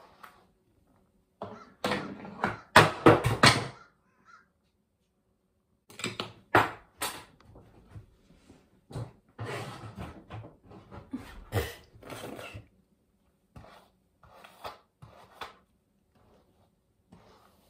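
Hairbrush strokes through long hair in irregular bursts, loudest about two to four seconds in, with scattered short knocks later.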